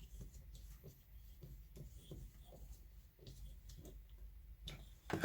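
Faint scraping and small ticks of a hand tool working on a pneumatic air joggler as its oil filler screw is nipped up, with a sharper clack near the end.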